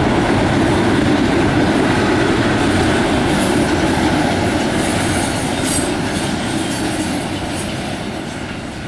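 Double-stack intermodal freight cars rolling past on steel rails, the wheels rumbling and clattering over the track. The sound fades steadily as the end of the train goes by.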